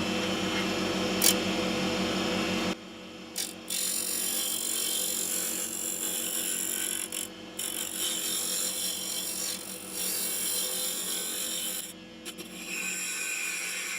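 Wood lathe running with a square carbide turning tool cutting into the spinning wooden blank of a box bottom. Under the steady motor hum there is a hiss of cutting that is loudest for the first three seconds or so, then continues with a few brief breaks as the tool comes off the wood.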